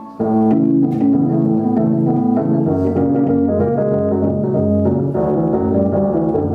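Live band playing an instrumental passage led by an organ-like keyboard: sustained chords over a stepping bass line that come in fully just after the start.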